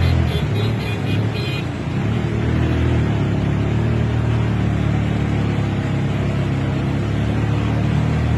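A motor vehicle engine running steadily amid street traffic noise. A quick series of short high beeps sounds during the first second and a half.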